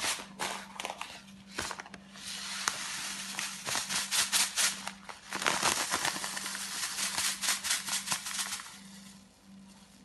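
Plastic packet of mushroom stock powder crinkling and rattling as it is shaken out over a bowl, a fast run of ticks and rustles that dies away near the end. A steady low hum sits underneath.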